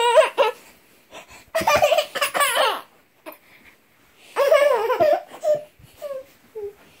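Toddler laughing and squealing in high-pitched bursts: one at the very start, a longer one about a second and a half in, and another about four and a half seconds in, followed by a few short squeaks.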